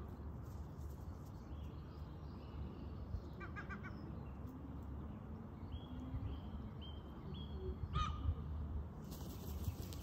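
Wild birds calling: a quick run of short notes, then several short chirps, then one louder sharp call about eight seconds in, over a low steady rumble. A rustling hiss comes near the end.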